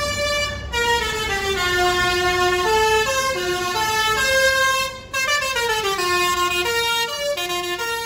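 A Kalingga Jaya intercity bus's telolet horn, a multi-trumpet musical air horn, playing a tune of held notes that step up and down, with a few sliding notes. The bus engine rumbles underneath. The tune breaks off briefly about five seconds in, then carries on.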